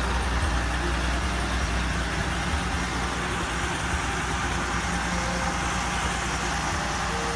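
A 1949 Dodge pickup's 218 cubic-inch flathead straight-six idling steadily with a low, even rumble.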